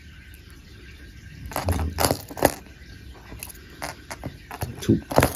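Hard plastic fishing lures with metal treble hooks being handled and set down on a wooden table: scrapes and light clicks and knocks, bunched about two seconds in and scattered again near the end.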